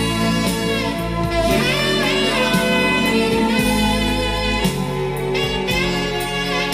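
Soul song's instrumental passage, with a saxophone playing a melodic line over a steady bass and band backing.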